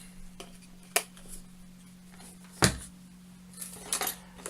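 Tools and small parts knocking and clicking as they are handled and rummaged in a box: a few separate sharp knocks, the loudest about a second in and just past halfway, over a steady low hum.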